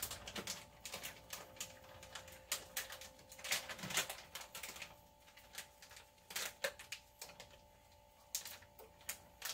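Irregular light clicks and taps of things being handled, over a steady low hum.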